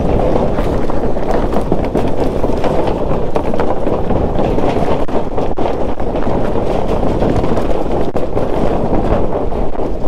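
Wind buffeting the microphone of a motorcycle on the move: a loud, steady rumble, with the bike's engine and road noise underneath.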